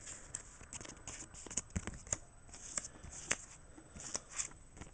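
Thin clear plastic card sleeve crinkling and rustling in the fingers as a trading card is slid into it: many small irregular crackles with a few sharper clicks.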